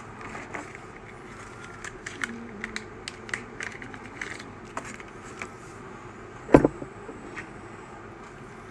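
Light clicks and small clatter of small hard RC-truck parts (spur gear and slipper clutch pieces) being handled, with one louder sharp knock about six and a half seconds in.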